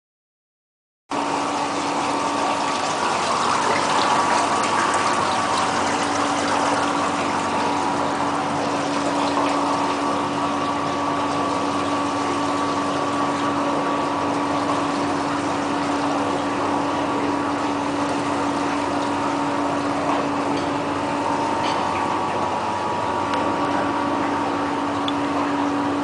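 Automatic liquid spray machine running: its row of nozzles sprays mist with a steady hiss over an even motor or pump hum, starting about a second in.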